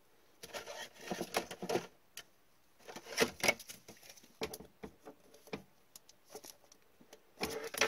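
Short bursts of rustling and clicking from a trading card in a soft plastic penny sleeve being handled and slid into a rigid clear plastic top loader.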